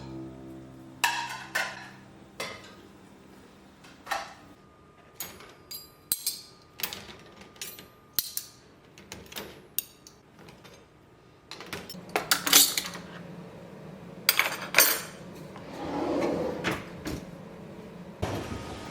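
Hard bathroom items such as bottles and containers being picked up and set down, making irregular clinks and knocks, which come faster and louder in the second half, with a short rubbing noise a few seconds before the end.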